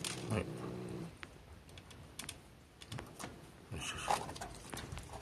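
Scattered small wet clicks and taps of a caged tabby cat licking a lickable treat from a tube held to its mouth, with handling noise of the treat. A low steady hum stops about a second in.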